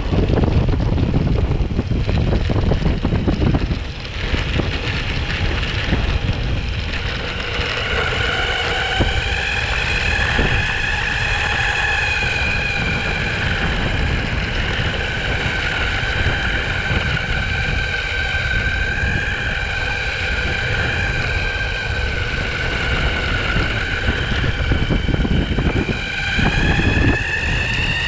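Wind rumble on the microphone while riding a belt-drive electric skateboard (Onsra Black Carve). Several seconds in, the motors' whine joins it, wavering with speed and rising in pitch near the end as the board speeds up.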